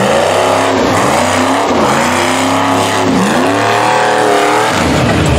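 Rock bouncer buggy's engine revving hard on a climb, the revs dropping and surging back up again and again as the throttle is worked.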